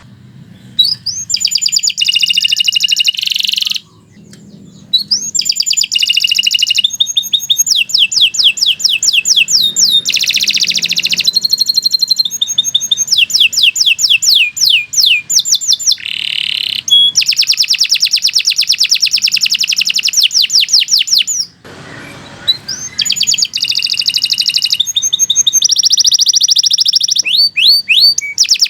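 Domestic canary singing a long, continuous song of fast rolling trills, rapid repeated chirps and buzzy held notes, with two short breaks.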